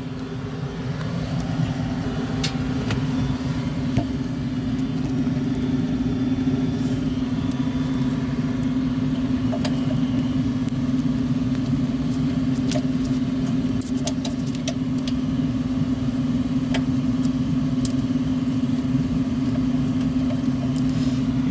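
A steady low mechanical hum, with scattered light clicks and taps from hand work on the furnace's sheet-metal burner assembly.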